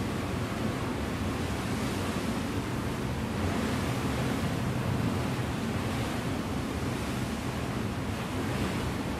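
Steady rushing sea ambience, waves washing with wind, swelling gently a few times, over a low hum.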